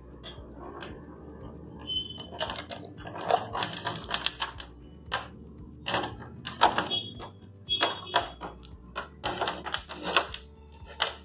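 Irregular clicks and taps of a rubber-coated electrical cable being uncoiled and moved about on a wooden tabletop.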